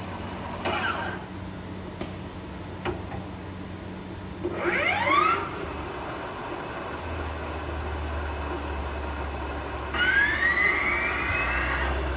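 A 1997 Makino GF-6 vertical machining center running under power, with a steady low hum that shifts about seven seconds in. Three rising whines from its motors speeding up come over the hum: a short one about a second in, the loudest around five seconds in, and a slower one near the end.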